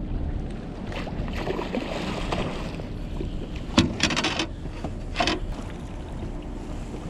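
Steady wind and water noise on a small fishing boat, with a sharp knock about four seconds in and two short splashy bursts just after it.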